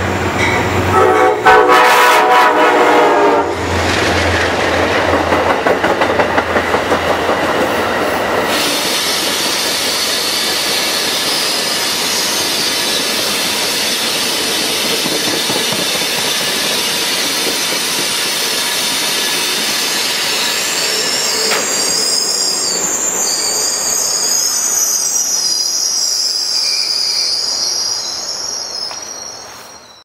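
Amtrak Genesis diesel locomotive's Nathan K5LA five-chime horn blowing a loud chord as the train approaches, followed by the Lake Shore Limited's passenger cars rolling past with steady wheel-on-rail noise. From about two-thirds of the way in, a high-pitched wheel squeal joins as the train slows into the station.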